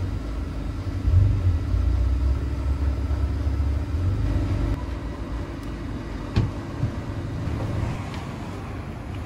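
A low, steady rumble that swells about a second in and eases off after about four seconds, with two short knocks later on.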